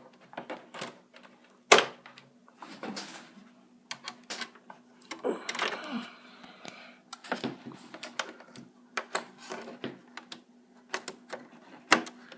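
HDMI cables being unplugged, plugged in and moved about: a run of irregular clicks and knocks with some rustling. The loudest knocks come about two seconds in and near the end.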